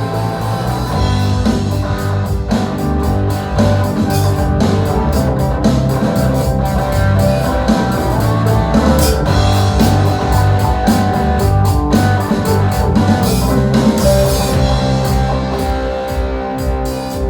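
Rock band playing an instrumental passage with no vocals: guitar chords over a steady drum-kit beat.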